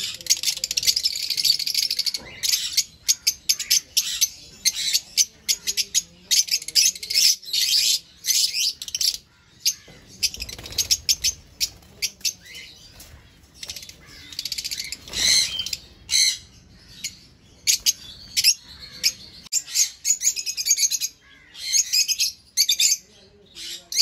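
A flock of African lovebirds chattering: many shrill, rapid chirps and squawks from several birds at once, calling over each other almost without pause.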